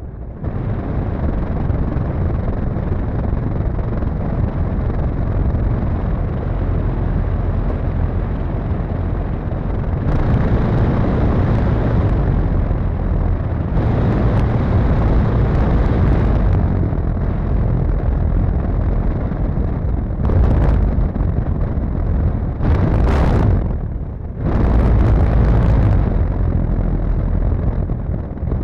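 Radio-controlled P-51 Mustang model's engine and propeller running at low throttle as the plane taxis, heard from a camera mounted on the plane with heavy wind rumble. The throttle rises in short surges several times, about ten seconds in and again repeatedly in the second half.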